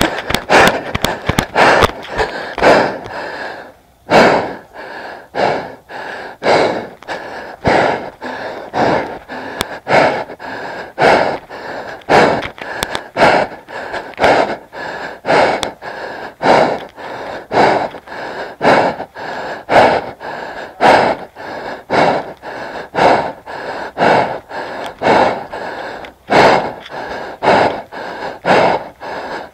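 A person breathing hard and fast close to the microphone, about one heavy breath a second, with a brief pause about four seconds in.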